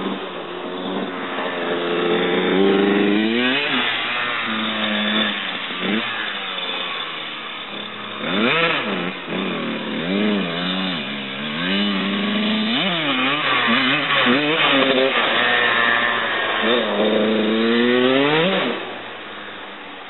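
Kawasaki KX85 two-stroke dirt bike engine revving up and falling back over and over, its pitch rising and dropping between blips of throttle. It settles to a quieter idle near the end.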